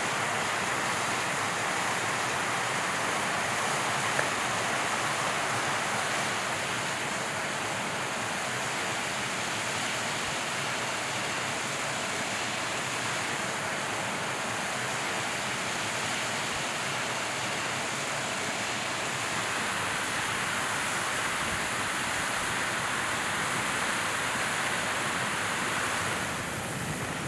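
Steady rushing outdoor noise, an even hiss with no distinct knocks or crackles, dropping slightly in level near the end.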